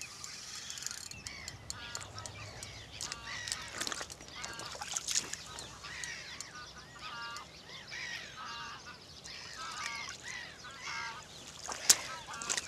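Geese honking repeatedly in short calls, one every second or so, with a single sharp click near the end.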